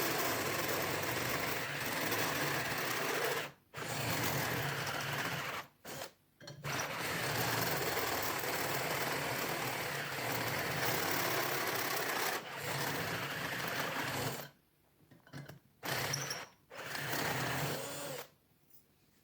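Electric drill running under load as a cone drill bit bores a series of holes through an Old English padlock's body. The drilling stops and restarts several times between holes, and stops shortly before the end.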